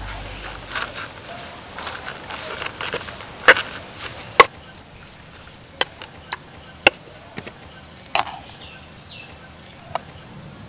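A ladle stirring and tossing grated coconut in a clay pot: a soft rustling of the mix, then a string of sharp, irregular taps as the ladle knocks against the pot, the loudest a few seconds in. A steady high insect sound runs underneath.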